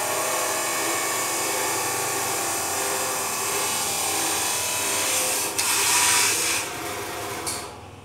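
A loud, steady machine motor whining with a dense hum of tones, falling away over the last two seconds.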